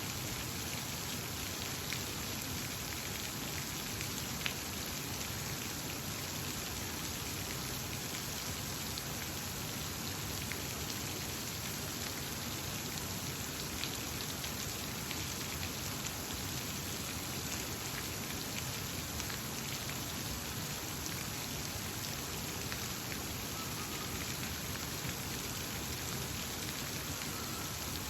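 Steady, even rush of water with small drip-like ticks scattered through it, and a couple of faint bird calls near the end.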